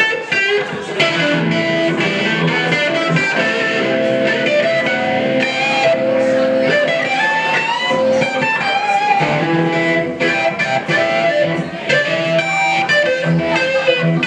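Live acoustic guitar and amplified electric guitar playing together in an instrumental passage, with no singing.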